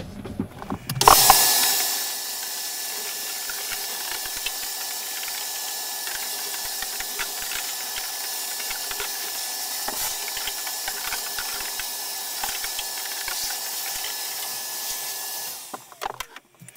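Vacuum cleaner switched on about a second in, running with a steady rush of air and a thin high whine while sucking MDF dust off a CNC router bed through its hose, with many small ticks of dust and chips going up the hose; it is switched off and runs down near the end.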